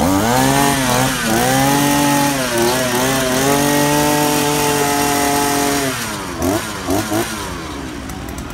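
Oshima 2P earth auger's small two-stroke engine revved up with no load, its pitch dipping twice before holding high and steady for a few seconds. About six seconds in the throttle is released and the engine drops back, with three short blips of throttle before settling toward idle.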